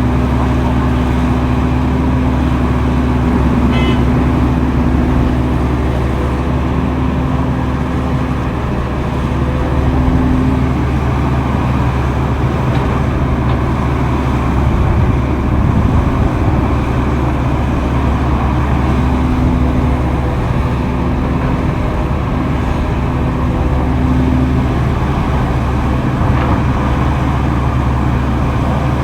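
Heavy earthmoving machinery's diesel engines running steadily in a continuous low drone, with a higher steady hum that comes and goes every few seconds.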